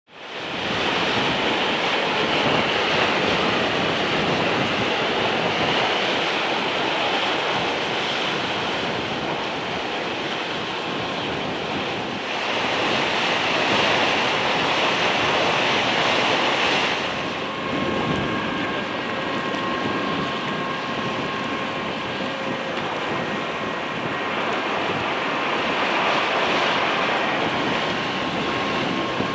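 Strong wind buffeting the microphone over a rough sea and surf: a steady rushing noise with a gusty rumble underneath, swelling louder for a few seconds around the middle. Faint steady hums come in past halfway.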